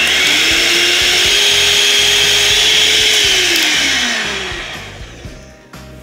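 Electric hand mixer whipping cream in a measuring jug, its motor whine stepping up in pitch just after the start, then winding down and stopping about four seconds in as it is switched off. The cream is still only partly whipped.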